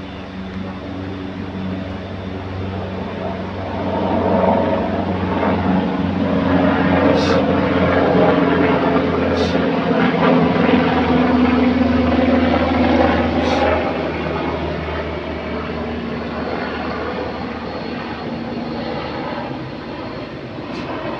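Engine hum of a passing vehicle, swelling about four seconds in, staying loud for about ten seconds, then fading.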